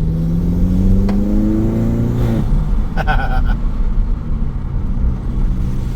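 Turbocharged 1.8 TFSI inline-four with a cold air intake, accelerating hard: the engine note climbs steadily for about two and a half seconds. Then the throttle snaps shut with a brief whoosh of turbo flutter, and the engine drops back to a steady low run.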